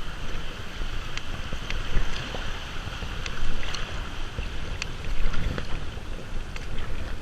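Kayak paddling on a river: wind rumbling on the microphone over water sounds, with scattered small sharp clicks and a swell in loudness every second and a half or so.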